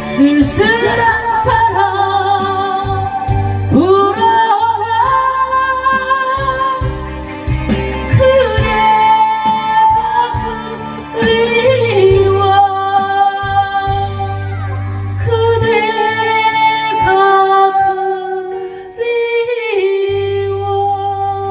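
Ballad music: a wavering lead melody with vibrato over sustained chords and a low bass line, with no lyrics sung.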